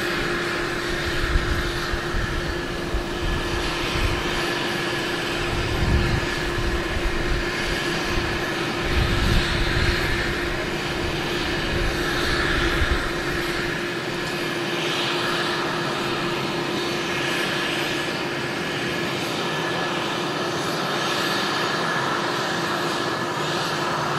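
AgustaWestland AW101 Merlin helicopter's turbines whining steadily during start-up, with the main rotor beginning to turn slowly. An uneven low rumble sits under the whine in the first half and drops away about halfway through.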